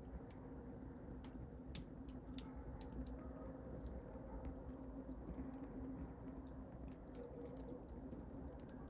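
Wood fire in a fireplace crackling: irregular small pops and snaps over a low, steady rumble.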